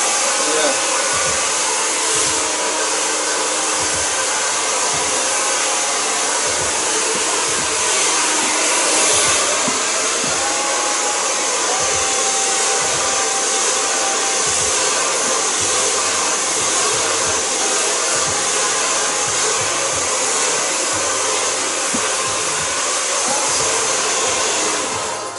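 Hand-held hair dryer blowing steadily while drying long hair, switched off right at the end.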